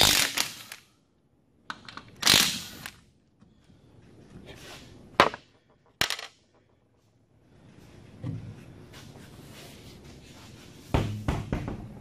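Impact wrench run in short bursts, zipping the lug nuts off a front wheel: two bursts in the first three seconds, then sharp metal clicks and knocks, and another rough burst about eleven seconds in.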